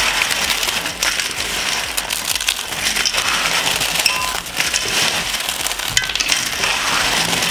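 Crisp baked honey-cake layer trimmings crunching and crackling as they are crumbled by hand into a pan, with a dense run of small cracks and clicks throughout.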